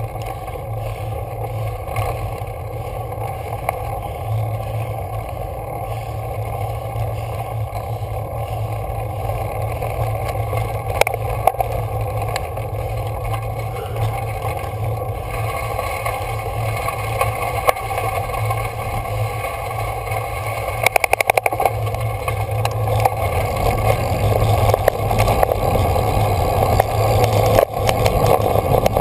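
Road bike ridden on a steep dirt and gravel road: a steady rumble of tyres on the rough surface mixed with wind on the microphone, growing louder toward the end. A brief run of rapid ticking comes a little after two-thirds in.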